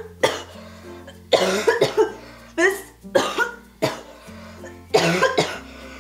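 A girl coughing into the crook of her elbow, about six coughs roughly a second apart, put on to act sick. Background music with a slow, steady bass line plays underneath.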